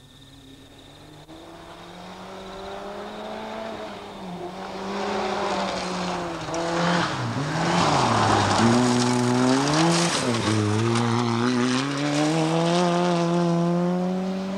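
Rally car on a gravel stage, approaching, sliding through a corner and accelerating away. Its engine climbs in pitch, drops back twice between hard revs, and rises again. Gravel sprays from the tyres through the loudest part of the pass.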